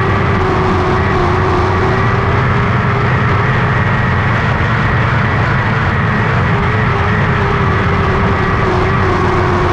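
Lightning sprint race car engine running at high, fairly steady revs, its pitch wavering only slightly up and down.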